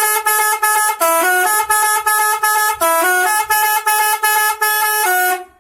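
Telolet horn, a multi-tone musical air horn on the Hiba Utama bus, playing a loud quick tune of short notes that step up and down between a few pitches, about three a second. It stops abruptly shortly before the end.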